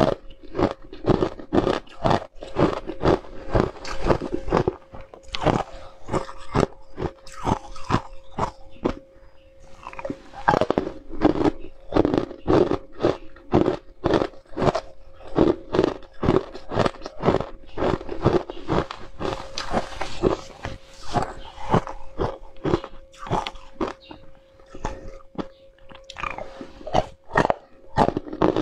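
Ice cubes being bitten and crunched between the teeth, a rapid run of crisp crunches several times a second with a short lull partway through. A faint steady hum runs underneath.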